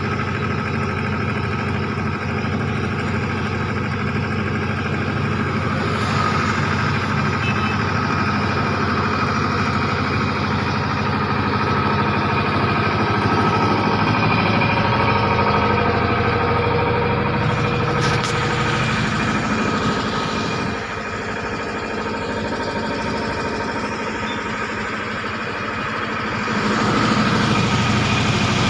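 KOEL Green diesel generator set running steadily inside its acoustic canopy, with an even engine hum.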